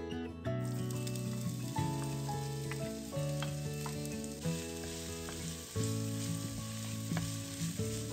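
Vegetables sizzling steadily as they fry in oil in a pan, the hiss starting about half a second in.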